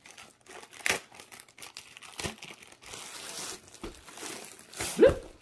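Paper wrapping around a rolled diamond-painting canvas rustling and crinkling as the roll is handled, with scattered crackles and a longer rustle about three seconds in. A brief louder sound comes near the end.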